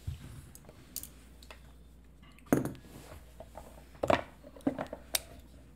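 Several sharp clicks and light taps as folding knives are handled, opened and set down on the table. Two clicks stand out, about two and a half and four seconds in.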